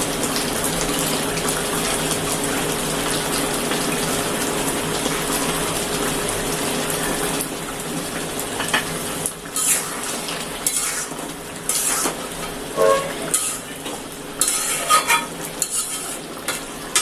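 Kitchen work: a steady rushing noise for about seven seconds, then scattered clinks and scrapes of metal utensils against pots and dishes, some with a brief ringing tone.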